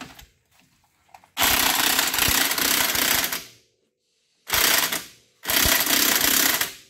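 Cordless impact wrench hammering fasteners tight on a car's front suspension at the wheel hub, in three bursts: about two seconds, a short half-second, then just over a second.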